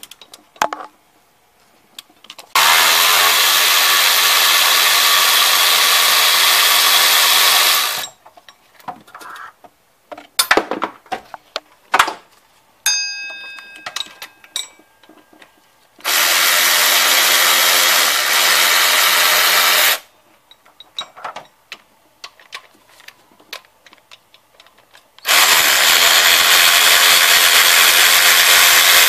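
Power drill spinning a socket on a long extension to turn a bolt at the A/C compressor, in three steady runs of several seconds each. Between the runs there are metal clinks and taps of tools being handled.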